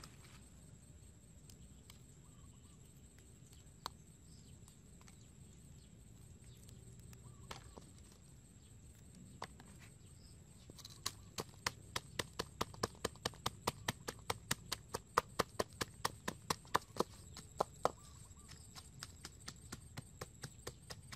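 A pestle pounding garlic and red chilies in a coconut-shell mortar. A few single knocks come first, then about halfway through a quick, steady run of knocks at about five a second, easing off near the end.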